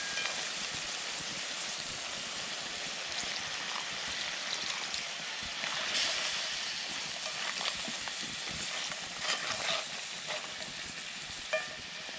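Crayfish simmering in coconut milk in a cast-iron pan, a steady bubbling hiss. A few light knocks start about six seconds in as a stick stirs the shells.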